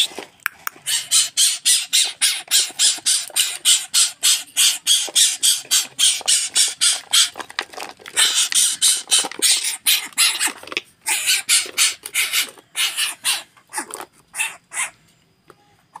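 Greater coucal giving a rapid string of short, harsh hissing calls, about four a second, which thin out and stop near the end.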